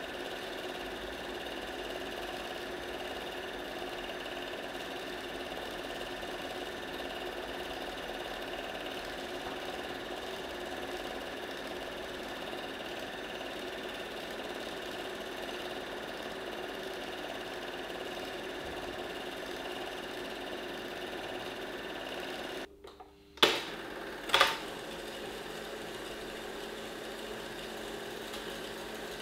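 Bauer T 141 Sound Super 8 film projector running, a steady mechanical whir with a hum of several steady tones. About 23 seconds in the sound drops out for a moment, then two sharp clicks come about a second apart, and the steady running goes on.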